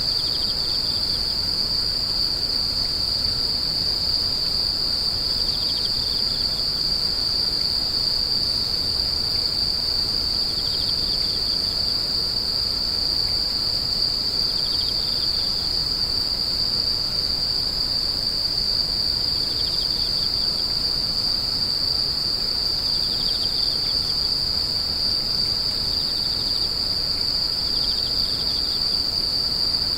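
Chorus of grass insects keeping up one continuous high-pitched trill. A fainter, slightly lower short chirp sounds every four or five seconds.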